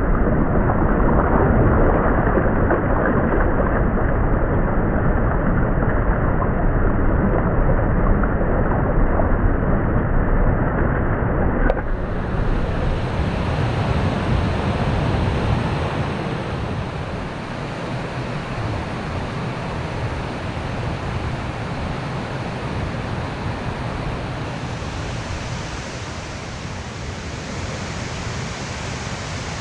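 A swollen mountain stream rushing over rocks: a loud, steady roar of water, dull-sounding for the first twelve seconds. Then a sudden change to a quieter, fuller-sounding rush of water that slowly grows softer.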